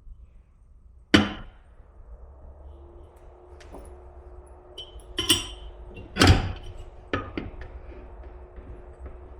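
Parts of a coffee grinder knocking and clicking as they are worked back into place during reassembly: a few sharp knocks, the loudest about a second in and about six seconds in, with smaller clicks between. A faint steady hum starts about three seconds in.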